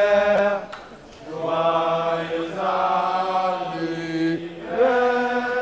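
Male voices singing a slow chant in long held notes, each sustained for a second or more with short breaks between, the pitch shifting gently from note to note.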